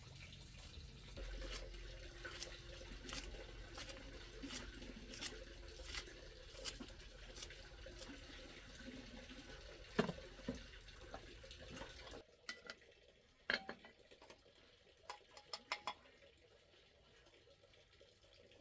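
Dishes and utensils clinking repeatedly, with water sounds, over a low background noise. About twelve seconds in, the background drops away, leaving a few scattered clinks.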